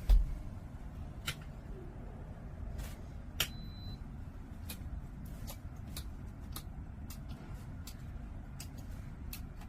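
A heavy thump at the start, then scattered light clicks and knocks over a low, steady rumble.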